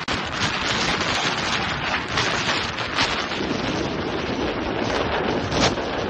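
Strong wind buffeting the microphone: a steady loud rush with quick gusty flutters throughout.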